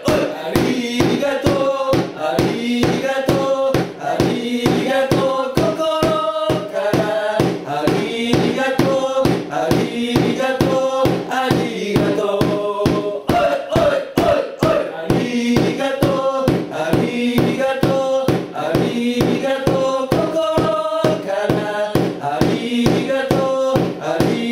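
Football supporters' chant: a group of voices singing a repeated melody together over a steady percussive beat.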